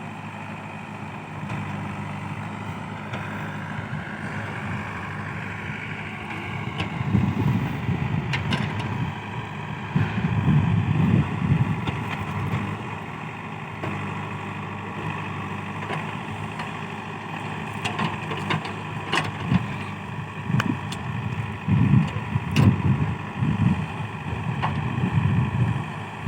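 JCB 3DX backhoe loader's diesel engine running steadily, swelling louder in surges under load several times, with a few sharp clanks.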